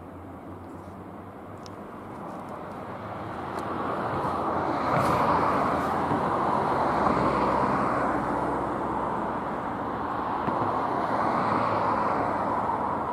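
Noise of a passing vehicle, building from about two seconds in, staying loud with a slight dip midway, and easing off near the end.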